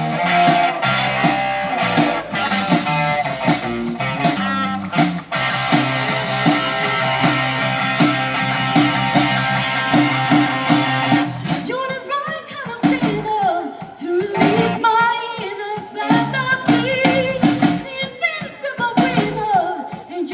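A song with guitar and bass: the band plays on its own at first, then a voice starts singing about halfway through.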